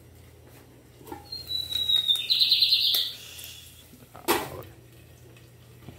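A loud, high squeak: a slightly falling whistle that breaks into a fast trill. About four seconds in, a metal clank of an aluminium pot lid being handled on the pot.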